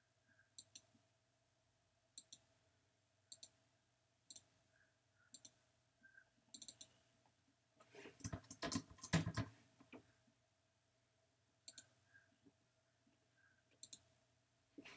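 Computer mouse clicks, each a quick click pair, about one a second, with a louder burst of rapid clicking and tapping lasting about a second and a half from around eight seconds in.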